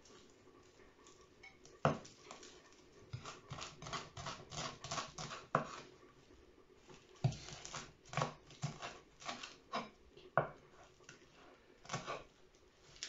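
Kitchen knife chopping fresh parsley on a wooden cutting board: irregular runs of quick knocks of the blade on the board, starting about two seconds in, with short pauses between runs.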